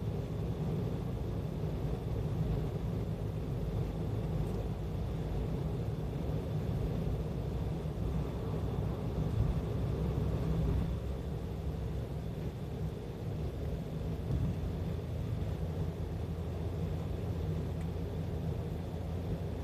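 Steady low rumble of road and engine noise inside a car's cabin as it drives along an expressway.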